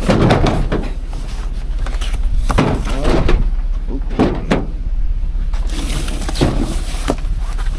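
Scattered knocks and thuds over a low steady hum, from a package being set down and a cargo van's door being worked.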